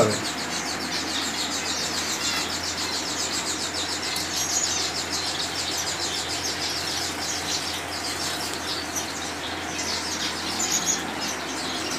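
A crowd of aviary finches, Gouldian finches among them, chirping continuously with quick, high calls over the steady rush of air from a pedestal fan.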